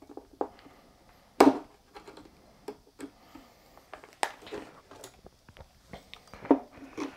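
Scattered clicks and knocks of an EVGA GTX 980 Ti Classified circuit board and its ACX 2.0 metal heatsink cooler being handled and pulled apart. The loudest knock comes about one and a half seconds in, with more about four and six and a half seconds in.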